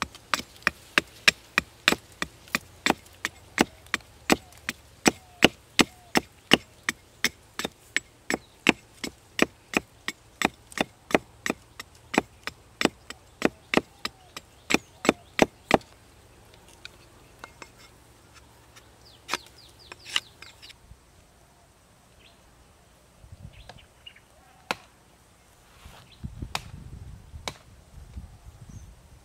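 A hatchet chopping into a dead log, with quick, even strokes about two or three a second. The chopping stops about halfway through, leaving a few scattered knocks and a low rustle near the end.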